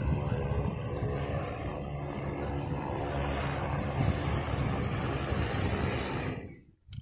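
Large multirotor cleaning drone's propellers whirring steadily as it descends and touches down, then the motors cut off suddenly near the end once it has landed.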